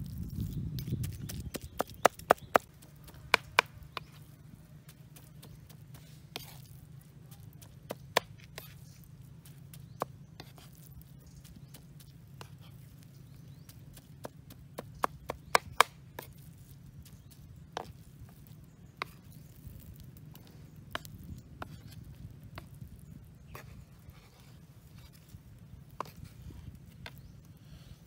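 Large kitchen knife chopping minced pork on a wooden cutting board: irregular sharp knocks of the blade on the board, coming in short clusters near the start and about halfway through, over a faint low hum.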